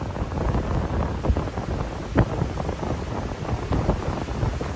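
Hurricane wind gusting hard across the microphone, a rough, uneven low rumble of buffeting, with one sharper crackle about two seconds in.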